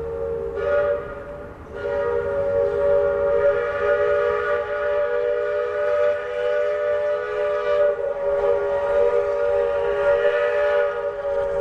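Chime steam whistle of a 1922 steam locomotive, sounding several tones at once as a chord. There is a short blast about half a second in, then one long blast held from about two seconds in.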